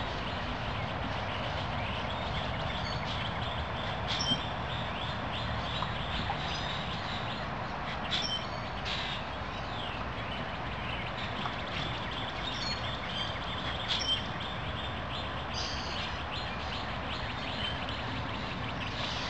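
Outdoor background: a steady rush of noise with scattered short bird chirps.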